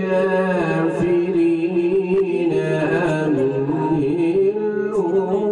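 A man's voice reciting the Quran in the melodic tajweed style into a microphone. The words are drawn out into long held notes that waver and bend in pitch.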